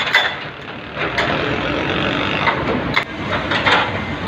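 Doosan DX140W wheeled excavator's diesel engine running steadily, with a few sharp knocks, one about a second in and one about three seconds in.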